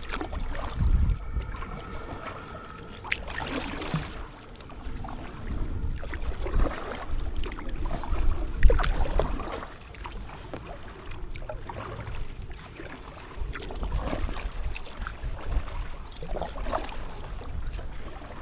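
Kayak paddle strokes splashing and dripping in canal water beside an inflatable kayak, irregular, over a low uneven rumble.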